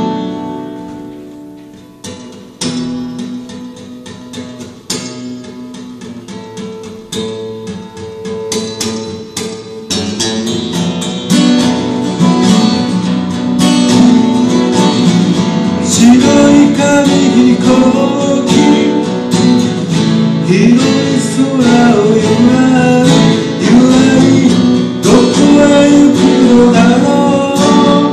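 Two acoustic guitars playing a folk song: soft, sparse picking for about the first ten seconds, then fuller and louder strumming. A man's singing voice comes in a little past the halfway point.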